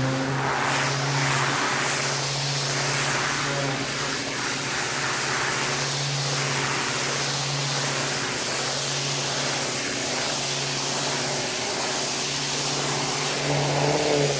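Pressure washer running steadily, its motor humming under the continuous hiss of the high-pressure water spray.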